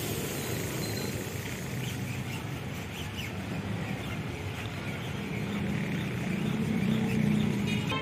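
Steady outdoor background noise with faint bird chirps scattered through it, and a low hum that swells about six to seven seconds in.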